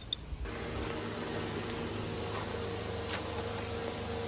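A steady mechanical hum with a faint held tone, setting in about half a second in, with a few faint clicks over it.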